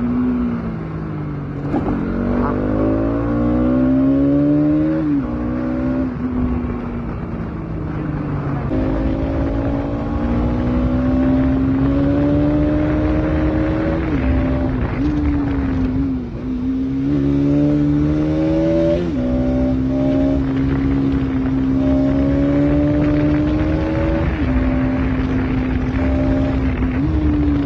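Bajaj Pulsar NS200's single-cylinder engine through its stock exhaust, pulling through the gears. Its note climbs steadily, then drops sharply several times as with upshifts.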